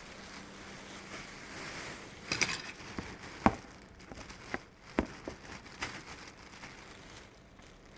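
Dresses being handled: fabric rustling and crinkling, with several sharp clicks or knocks, the loudest about three and a half and five seconds in.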